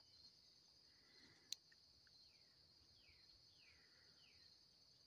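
Near silence, with a faint steady insect chorus, one sharp click about a second and a half in, and four faint downward-sliding bird chirps in quick succession past the middle.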